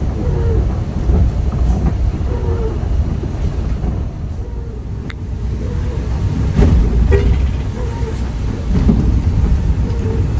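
Steady low rumble of a coach bus's engine and tyres on a wet road, heard from inside the cabin.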